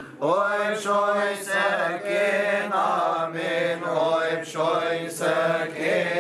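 Male voices chanting a Coptic Christmas liturgy hymn: a slow, drawn-out melody with long gliding notes over a steady low held note.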